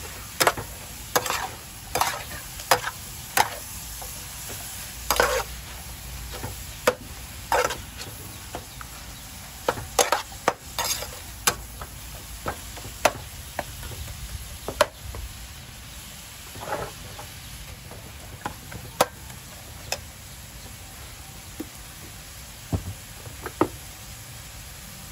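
Metal spatula scraping and clacking against a metal wok as fried rice is stir-fried, over a steady sizzle. The strokes come in quick succession for the first half, then grow fewer.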